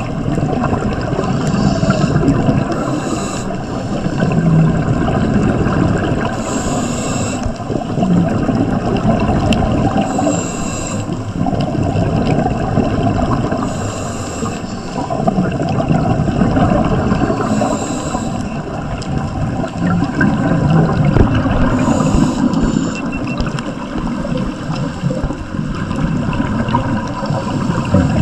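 Scuba regulator breathing underwater, heard through a camera housing: a continuous bubbling wash of exhaled air, with a brief hiss recurring about every three to four seconds.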